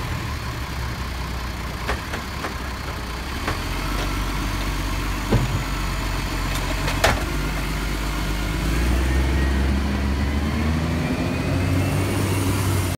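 Side-loading garbage truck's diesel engine running while its automated arm empties a wheelie bin and sets it back down, with several sharp clanks of bin and arm. Near the end the engine rises as the truck pulls away.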